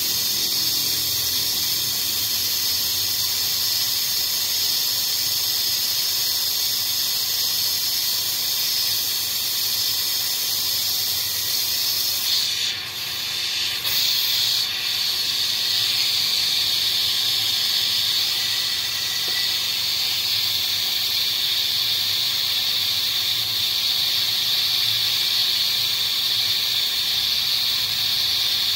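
Steady, high-pitched hiss, like a jet of pressurised air or spray, with a brief break about 13 seconds in.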